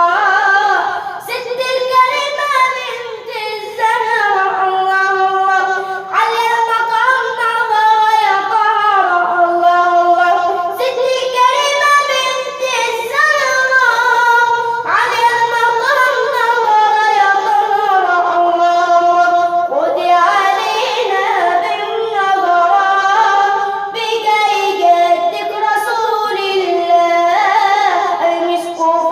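A solo voice singing an Arabic religious nasheed, a long ornamented melodic line with sliding, wavering pitch in a high register.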